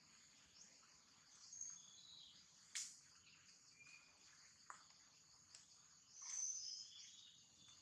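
Faint outdoor ambience of high-pitched bird chirps and insect trills, scattered short notes at several pitches over a thin steady high buzz. A single short sharp click comes a little under three seconds in.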